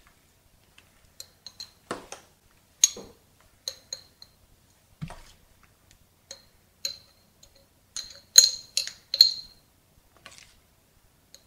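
Metal spoon clinking against a glass jar while food is spooned into it: irregular light taps with a short glassy ring, and a quick run of louder clinks about eight seconds in.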